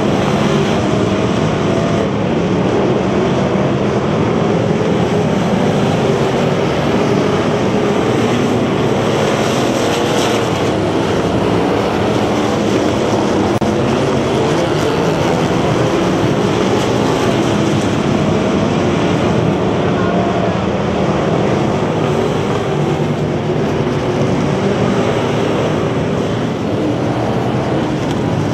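Several bomber-class stock cars racing on a dirt oval, their engines running together in a loud, steady, dense drone of overlapping, wavering pitches.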